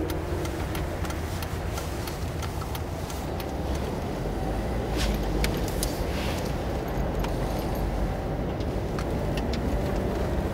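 Interior road noise of a moving car: a steady low rumble of engine and tyres, with scattered small clicks and rattles.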